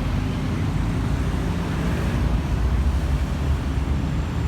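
A vehicle's engine running, a steady low rumble.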